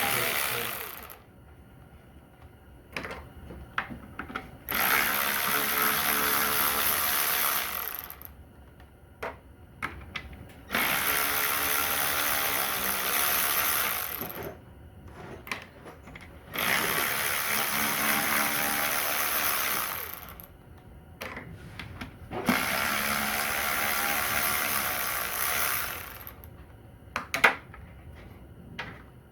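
A power tool, such as a drill or air ratchet, runs in about five bursts of roughly three seconds each as it spins bolts out of a Corvair Powerglide transmission. Short metallic clicks come between the bursts.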